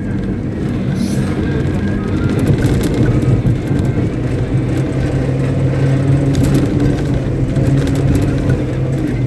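Caterpillar 777D haul truck's Cat 3508B V8 diesel engine running steadily at a constant speed, a deep even hum.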